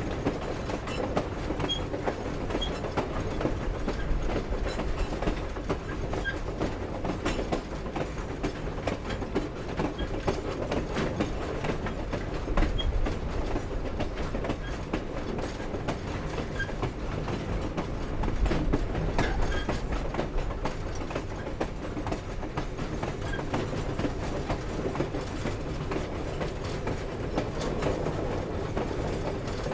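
Grand Canyon Railway steam train rolling along: a steady rumble of wheels on the rails, with frequent clanking and clicking from the cars and a few short squeaks.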